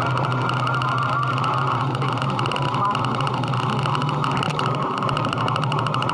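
Motorcycle engine running steadily at an even speed, a constant low drone without gear changes or revving.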